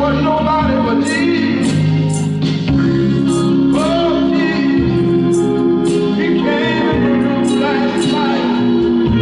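Gospel song with singing over held bass and keyboard chords and a regular cymbal beat.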